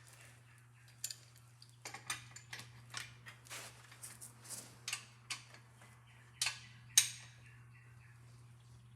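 Metal hand tools clicking and clinking irregularly, about one to two a second, as a nut on the motor mount is tightened, with two louder sharp clacks near the end; a faint steady low hum runs underneath.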